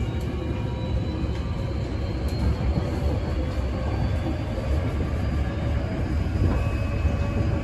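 Running sound inside a Hankyu 8300 series electric train car with a Toyo Denki hybrid SiC VVVF test inverter: a steady rumble of wheels on rail with thin motor whine tones that climb slowly in pitch as the train runs at speed.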